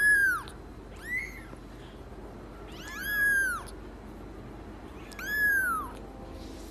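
A young kitten mewing: four high-pitched mews, each rising and then falling in pitch. The first two are short and the last two longer, spaced about a second or two apart.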